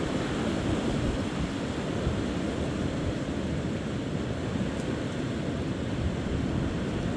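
Strong storm wind gusting near 40 mph, a steady rushing noise heavy in the low end, with wind buffeting the microphone.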